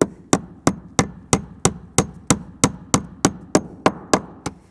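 Hand hammer striking a roofing nail steadily, about fourteen blows at roughly three a second, tacking a soffit panel up into the wooden framing of a roof overhang.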